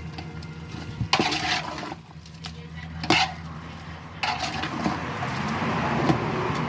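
Utensils clattering against pots and dishes, with two sharp clinks about one and three seconds in, then a building hiss that stops abruptly at the end.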